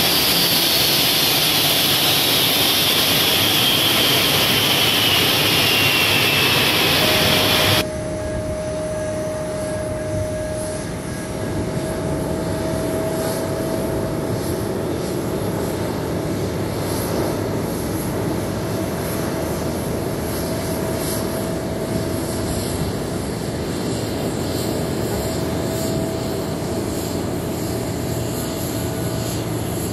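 Airbus A350-900 jet engines running, loud, with a whine that falls slowly in pitch. About eight seconds in the sound drops suddenly to a quieter, steady engine noise with a steady whine running through it.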